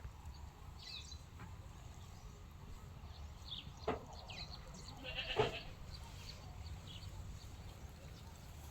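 Faint outdoor ambience under a steady low rumble, with a few short high chirps. A brief animal call comes about five seconds in.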